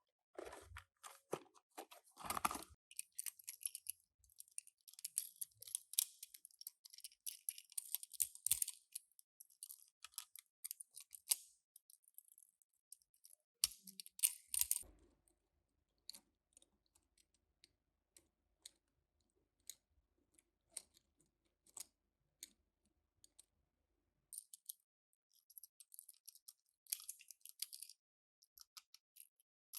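Toy cars and their plastic packaging being handled: quick irregular clicks, taps and crinkles, coming in busy bursts with a sparser stretch in the middle.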